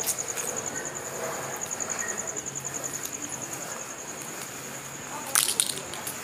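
An insect trilling steadily in a high, rapidly pulsing tone, with a few sharp clicks a little after five seconds in.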